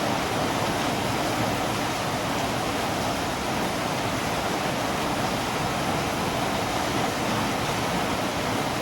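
Steady rain falling: a constant, even hiss with no separate drops, thunder or other events standing out.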